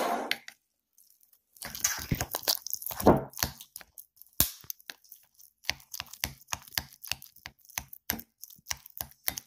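A toddler eating: irregular clicks and scrapes of a spoon against a ceramic bowl, mixed with close chewing and mouth noises.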